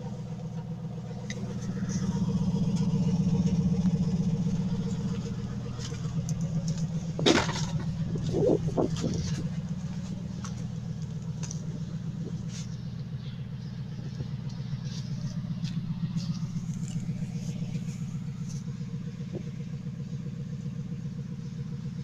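Dodge Ram 1500's 5.7-litre Hemi V8 idling steadily, louder for a couple of seconds near the start, with a sharp click about seven seconds in.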